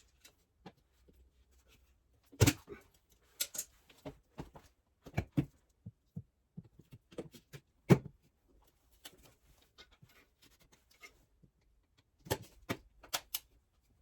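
Scattered knocks and clinks of tools and parts being handled, the loudest about two and a half and eight seconds in, with a quick cluster near the end.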